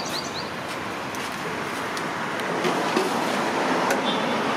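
Steady roadside traffic noise, with a few faint clicks and taps. A rapid series of short, high chirps trails off in the first half second.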